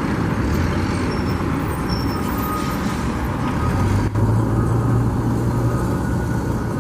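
Road traffic with a heavy truck engine running close by. Its low drone grows stronger a little past halfway through, and there is a single sharp click about four seconds in.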